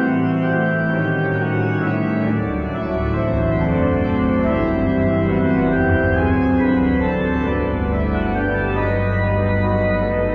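The grand pipe organ of Chartres Cathedral playing an improvised variation in full, sustained chords; deep pedal notes come in about two and a half seconds in.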